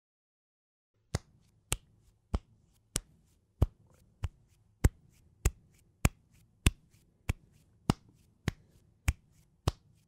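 Barefoot footsteps walking at a steady pace, about one and a half steps a second, each a short sharp slap of a bare sole. They start about a second in, after silence.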